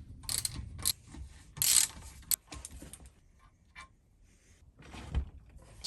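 Metal clinks and scrapes of a spanner being fitted and worked on a rusted bolt of an old cast-iron bench vise: a few sharp clicks, a short rasping scrape about two seconds in, then quieter handling.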